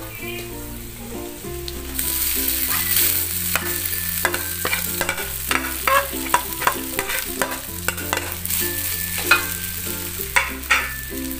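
Cooked rice sizzling as it goes into a hot wok of fried anchovies, chilli and spice paste, with a metal spatula scraping and clicking against the wok; the sizzle gets louder about two seconds in. Background music with a bass line plays underneath.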